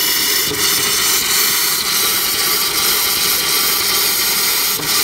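Compressed air at about 60 PSI hissing loudly and steadily out of an open RV water fixture as the water lines are blown out, with a few short spits.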